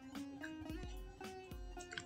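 Soft background music with plucked-string notes over a low pulse.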